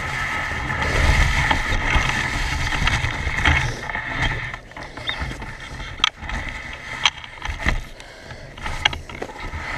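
Dog sled gliding along a snowy trail: a steady hiss and rumble of the runners with wind on the microphone, and a few sharp knocks in the second half.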